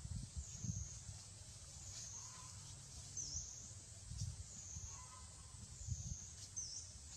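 Outdoor ambience: a steady high-pitched drone that dips and swells every second or two, with short bird calls repeating about every three seconds over a low uneven rumble.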